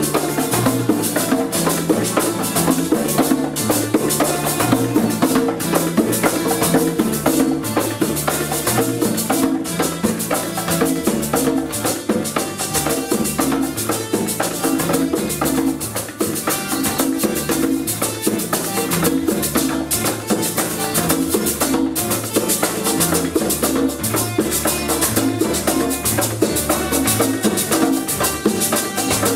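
A rondalla, a plucked-string ensemble of Puerto Rican cuatros and guitars, playing with electric bass and congas in a steady, rhythmic piece. The bass line moves note by note under regular percussion strokes.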